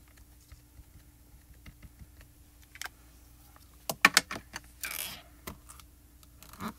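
Small clicks and taps of a clear acrylic stamp, ink pad and hinged acrylic stamp positioner being handled, with a quick run of sharp clicks about four seconds in, a brief rustle a second later and a few more clicks near the end.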